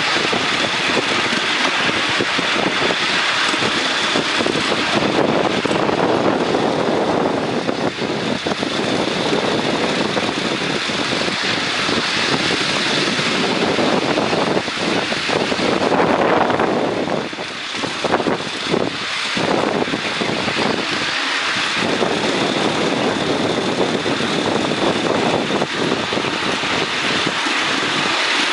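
Miniature railway train running along its track with a passenger aboard: a steady rushing rumble of wheels on rail, with no distinct engine beat, easing briefly about seventeen seconds in.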